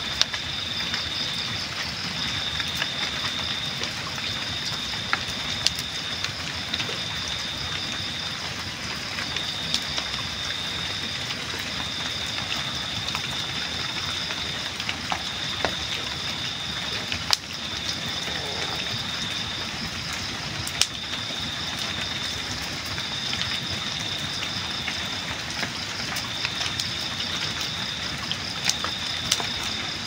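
Wood campfire burning with a steady hiss and scattered sharp crackles and pops every few seconds. Night insects trill steadily in the background in a high, pulsing drone.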